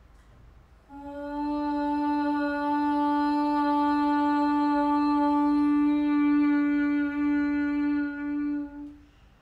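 A woman's voice chanting one long Om to close a yoga practice. It starts about a second in and is held on a single steady pitch for about eight seconds.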